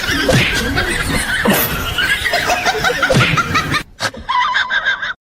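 People laughing, with an abrupt cut about four seconds in to a short run of quick, repeated laughing bursts.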